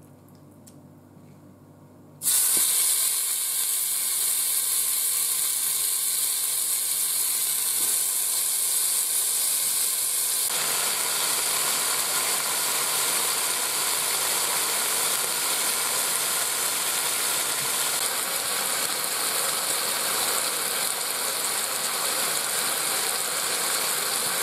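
Marinated oxtails sizzling as they sear in hot oil in a Ninja Foodi's inner pot on high sear/sauté. The sizzle starts suddenly about two seconds in, as the meat goes into the pot, and stays loud and steady.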